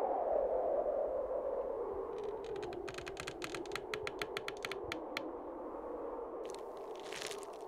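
Film soundtrack drone: a humming tone that slowly sinks in pitch and fades, with a quick run of sharp clicks in the middle and short rustling, crunching bursts near the end.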